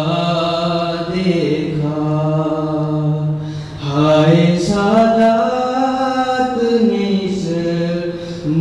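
A young man's solo voice chanting a mourning recitation in long, drawn-out melodic notes, with a brief breath about three and a half seconds in and a higher phrase that rises and then sinks back down.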